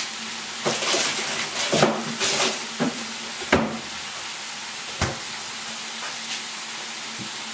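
Diced bacon sizzling steadily as it fries in a pan, with a few scattered light knocks and clicks.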